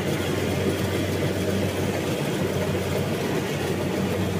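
Combine harvester's diesel engine running steadily with a constant low hum.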